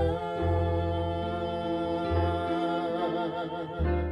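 A small live band with a singer: one long sung note with vibrato held over low bass notes that change about every second and a half.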